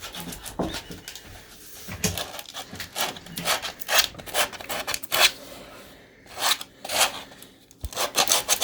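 Sandpaper rubbed by hand over wood in short, irregular scratchy strokes, settling near the end into quick, even back-and-forth strokes.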